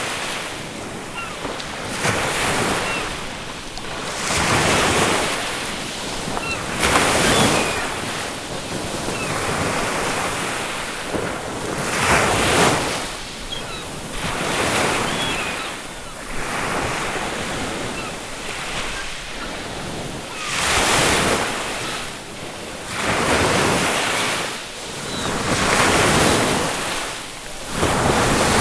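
Ocean waves breaking on a shore, the surf rushing in loud swells every few seconds, with wind across the microphone. A few faint, short seagull calls sound far off between the waves.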